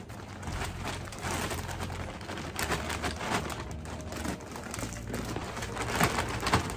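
Plastic bag of garden soil crinkling and rustling as soil pours out of it into a wooden planter box, in uneven bursts, loudest about six seconds in.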